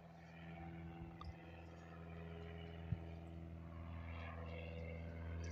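A distant airplane's engine drone overhead: a steady low hum that grows gradually louder. There is one sharp click about three seconds in.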